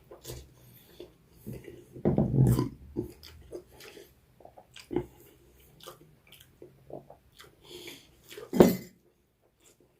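Close-miked chewing of a person eating meat and rice: irregular wet clicks and crackles, with two louder mouth noises, one about two seconds in and one near the end.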